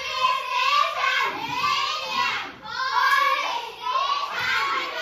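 Many young children's voices chanting together in chorus, in phrases of about a second each with short breaks between them.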